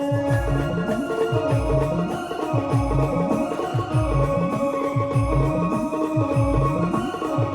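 Brass band playing an instrumental passage: a held, sustained melody over regular bass drum beats.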